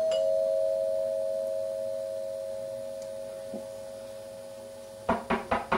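Two-tone doorbell chime, a higher note then a lower one, ringing on and slowly fading. About five seconds in come four quick, sharp raps.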